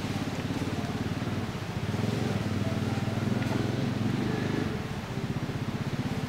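A motor engine running steadily with a fast low throb, growing louder about two seconds in and easing off again near the end.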